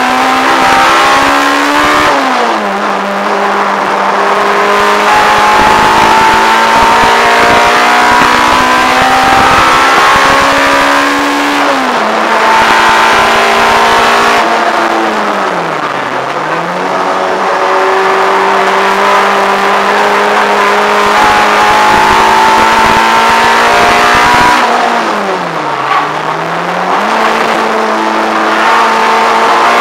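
Peugeot 106 GTi's 1.6-litre 16-valve four-cylinder on Jenvey individual throttle bodies, heard from inside the cabin, running hard on track. The engine note holds high along the straights, steps down a couple of times, and dips deeply twice, about halfway and near the end, as the driver lifts off for corners, then climbs again.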